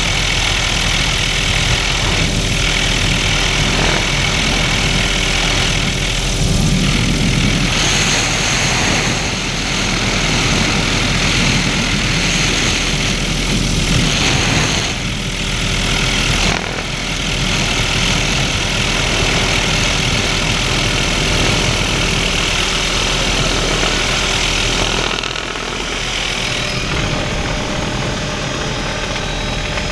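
Helicopter in flight with its doors off: steady rotor and engine noise mixed with wind rushing through the open cabin.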